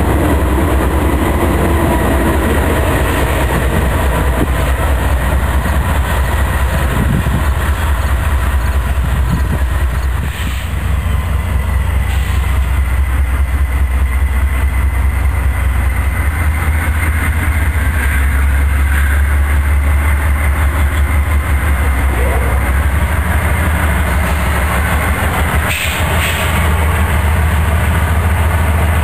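Diesel freight trains: a double-stack intermodal train passes close with a steady rumble and wheel clatter. After a break about ten seconds in, a second train's diesel-electric locomotives rumble as they come by.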